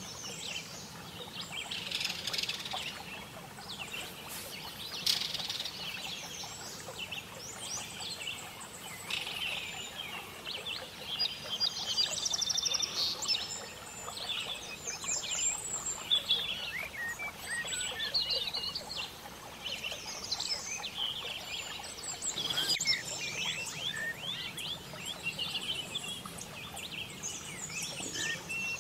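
Songbirds chirping and trilling, many overlapping calls with quick falling whistles, over a faint steady background hiss.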